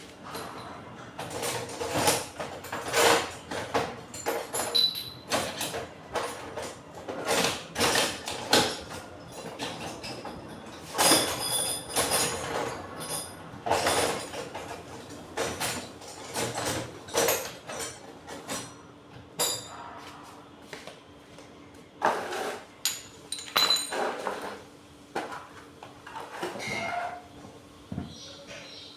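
Irregular metal knocks and clanks, some with a brief ringing, from hammering and handling parts of a 1.5 HP electric water pump while its bearings are being replaced; the knocks pause for a few seconds past the middle, then resume.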